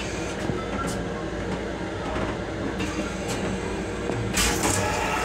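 Metro-North M7 electric railcar running, heard from inside its restroom: a steady low rumble of the moving car with scattered clicks and rattles. Near the end a brief, loud hiss cuts in for about half a second.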